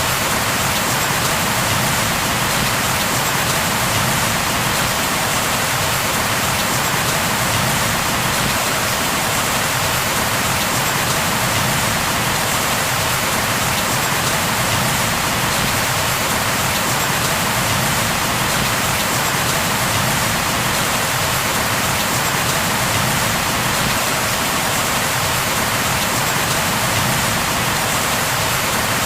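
Steady heavy rain falling on a surface, an even hiss with no breaks or changes.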